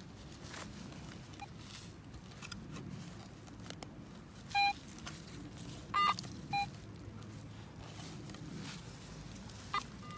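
A hand digging shovel scraping and cutting into soft, grassy soil. About halfway through, a metal detector gives three short beeps, its response to a copper coin in the loosened dirt.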